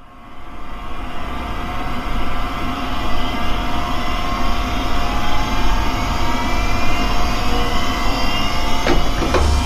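Synthesized laser-beam sound effect: a dense, loud, jet-like roar that swells up from silence over the first two seconds, with a deep rumble underneath and several whining tones slowly rising in pitch. Two short sharp zaps cut through it near the end.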